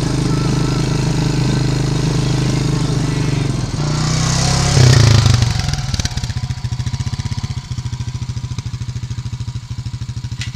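ATV engine running under way, then, after a louder noisy stretch about five seconds in, idling with an even low pulsing beat of several pulses a second.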